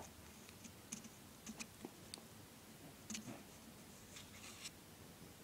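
Faint, scattered light clicks and taps of hands handling a 1/6 scale plastic action figure, working the swords out of the sheath on its back.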